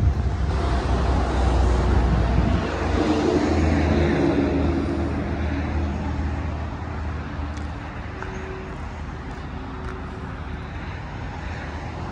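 Pickup truck engine idling with a steady low hum, loudest in the first half and then fading.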